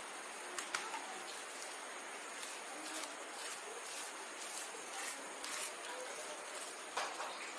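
Hands scooping a wet ground rice-and-chilli paste from a bowl and smearing it over a colocasia (taro) leaf, giving a few faint soft pats and taps over a steady quiet hiss.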